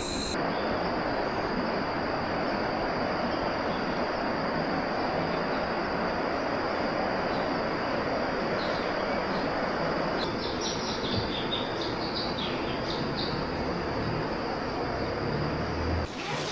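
Steady rushing outdoor noise with a thin, high, steady tone over it. A bird calls a run of short, high chirps about halfway through.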